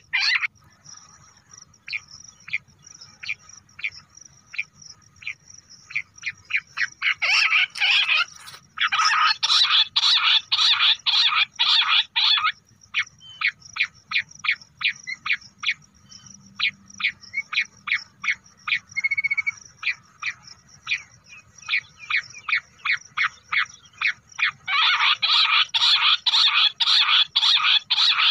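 Bush quail calling: rapid runs of short, high, overlapping calls, as from a covey calling together, about nine seconds in and again near the end. Between the runs come spaced single notes, about two or three a second.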